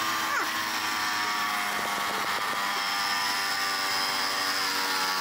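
Small portable electric air compressor running steadily, pumping air into a compressed-air rocket launcher's pressure chamber to charge it for a launch.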